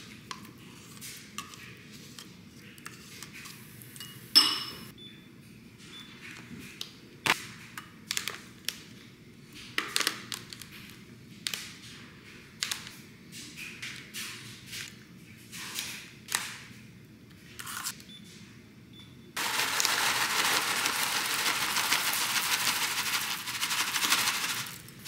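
Spoon scraping and knocking as yogurt is scooped from its cup into a ceramic bowl, then scattered clicks and taps as berries are dropped in from a plastic clamshell. About nineteen seconds in, a dense, steady rattle starts as protein granola is poured from its bag into the bowl, the loudest sound here.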